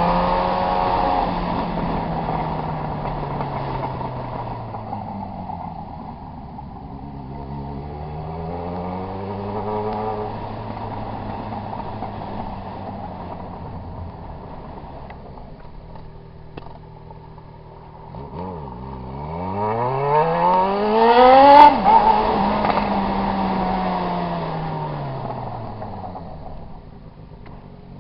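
Yamaha XJ6's inline-four engine revving up and down, its pitch falling and rising several times. The strongest rise, about three-quarters of the way through, climbs sharply to a peak, then winds down slowly before picking up again near the end.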